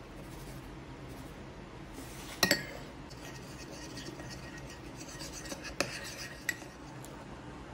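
Kitchenware clinking: a sharp, ringing double clink about two and a half seconds in, then a few seconds of light scraping with two smaller clinks.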